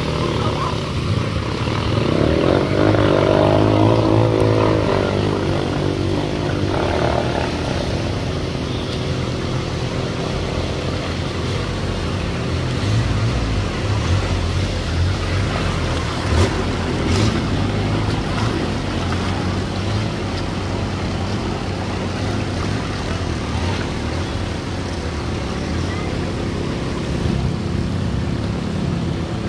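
Motorcycle engine running steadily while riding through floodwater, over a constant wash of water noise. A louder wavering drone swells about two to five seconds in.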